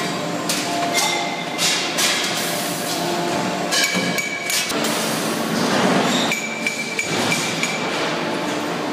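Steel strip clanking and ringing as it is rolled into a ring on a roller bending machine: irregular metallic knocks and clinks, each leaving a short ringing tone.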